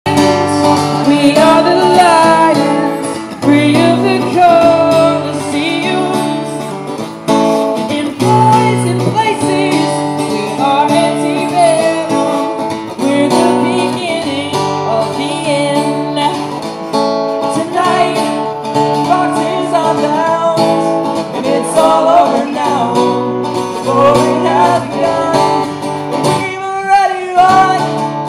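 Live music: a guitar strumming chords with a voice singing the melody.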